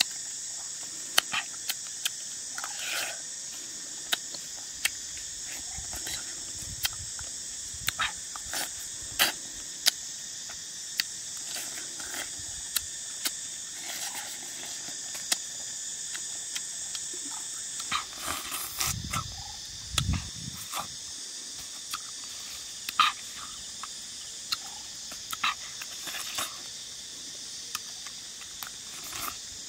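Steady high-pitched insect chorus with frequent short, sharp mouth clicks and smacks from biting and sucking small ripe yellow mangoes. A couple of low thuds come about 19 to 20 seconds in.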